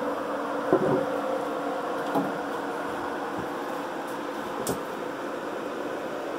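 Steady whir and hum of the off-grid inverters' and battery rack's cooling fans working under a heavy house load, with a few faint knocks.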